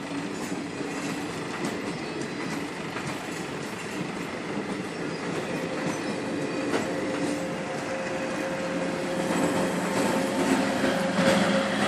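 Indian Railways passenger coaches rolling past at close range, their wheels clicking over the rail joints. A steady tone grows louder over the last few seconds.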